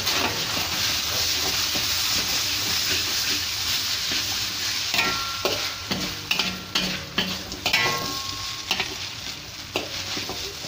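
Rice vermicelli stir-frying in a wok: a steady sizzle, with the metal spatula scraping and clacking against the pan, the strokes coming thick and fast from about halfway through.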